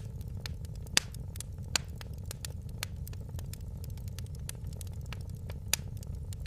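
Fire in a fireplace crackling steadily over a low rumble, with many small snaps and three louder pops: about a second in, shortly after, and near the end.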